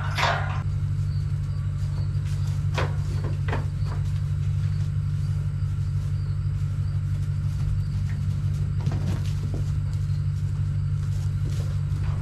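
Tractor engine running at a steady speed, with a few light knocks about three seconds in.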